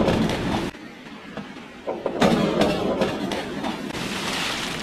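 Splashing of a diver entering pool water head first off a springboard, ringing in a reverberant swimming hall. A second, longer stretch of splashing and churning water comes about two seconds in.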